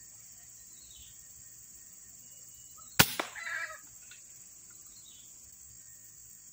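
A single air rifle shot about three seconds in: one sharp crack, then a second smaller knock just after, and a brief shrill call lasting about half a second. A steady faint high hiss runs underneath.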